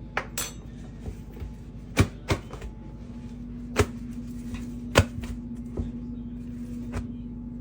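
Irregular sharp knocks and taps of kitchen work with dough and utensils, about seven over the stretch, the loudest about two and five seconds in, over a steady low hum.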